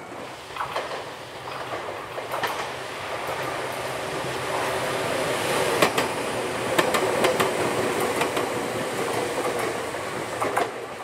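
Two-car electric commuter train of the Ryutetsu Nagareyama Line passing, its wheels clicking over the rail joints over a steady running hum. The hum is loudest around the middle and eases near the end.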